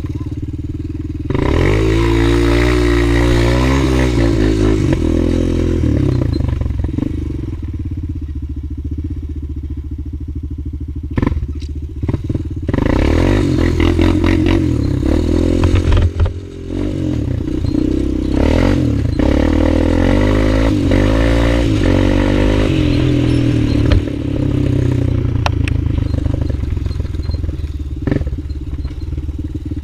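Honda 250EX sport ATV's single-cylinder four-stroke engine pulling away and accelerating through the gears, revving up, easing off and picking up again several times. A few sharp knocks sound around the middle.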